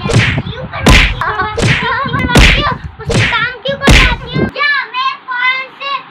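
Three loud thumps of blows landing, about a second and a half apart, during a children's play fight. Between them a child's voice cries out, ending in a run of short repeated cries about every third of a second.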